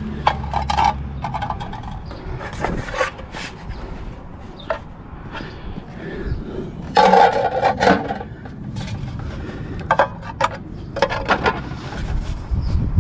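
Irregular clattering, knocks and scrapes of objects being handled, loudest about seven seconds in, with a low engine hum in the first second.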